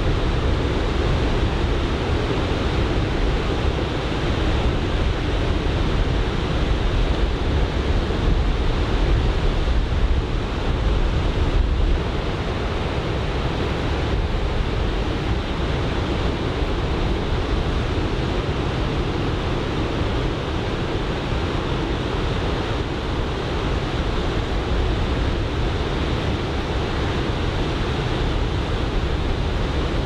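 Choppy ocean surf breaking on a beach in a steady rush, with onshore wind rumbling on the microphone. The level drops a little about twelve seconds in.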